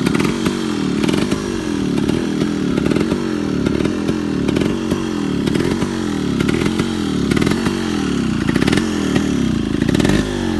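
Yamaha RX 135's two-stroke single-cylinder engine running, its pitch rising and falling over and over.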